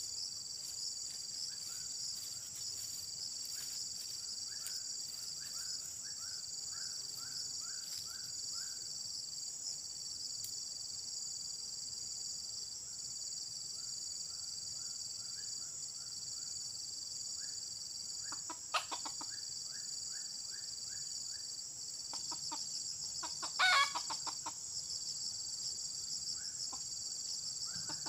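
Red junglefowl rooster giving a short crow about three-quarters of the way in, with a briefer call a few seconds before it. Under it runs a steady high insect drone, and a faint series of short repeated chirps comes and goes.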